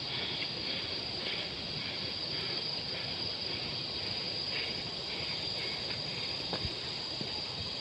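Crickets trilling in a steady high-pitched chorus over a steady hiss.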